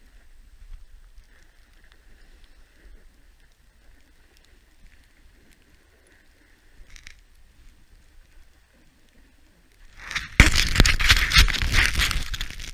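Snowboard gliding through deep powder with a faint, steady hiss; about ten seconds in, a sudden loud burst of scraping and crackling snow that lasts a couple of seconds.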